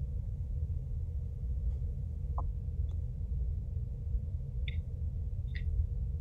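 Steady low rumble of background room noise with a faint hum and a few faint, short clicks.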